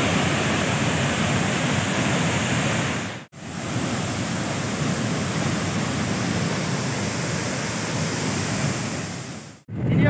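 Waterfall: a steady rush of heavily falling, foaming water, broken by a brief dropout about three seconds in and again near the end.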